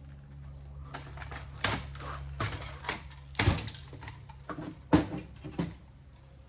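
Sharp clicks, knocks and clatter of metal and plastic parts being handled while a home theater unit is dismantled, over a steady low hum that stops near the end.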